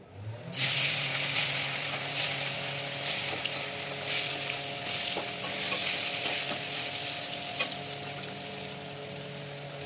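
Fish pieces sizzling as they fry in hot oil in a pan. The loud sizzle begins about half a second in, right as the fish goes in, then slowly settles, with a low steady hum beneath it.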